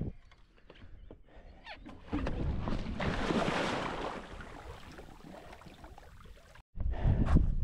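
Water splashing and rushing as a foil board run is attempted, swelling about two seconds in and fading over the next few seconds. Near the end, after a brief dropout, a louder low rumble sets in.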